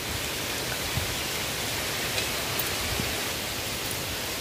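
Elephant foot yam simmering in coconut milk in an earthenware pot: a steady bubbling hiss with a few faint pops.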